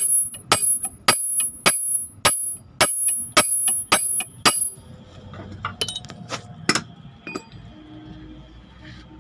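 A hammer striking a steel drift on a Hino truck's steering knuckle to drive in the kingpin: about nine sharp, ringing metal blows, roughly two a second. These are followed by a few lighter metallic taps about six seconds in.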